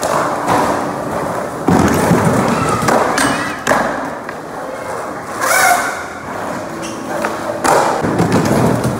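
Skateboards thudding on a court floor: several hard landings and board slaps, the loudest about two seconds in and again near the end, over crowd voices.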